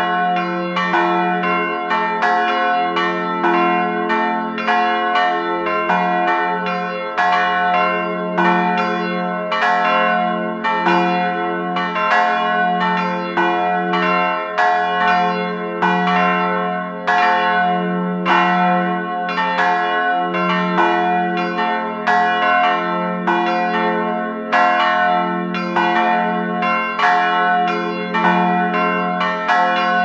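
Three church bells pealing in a steady, repeating rotation. The strikes come in quick succession and their ringing tones overlap into a continuous sound.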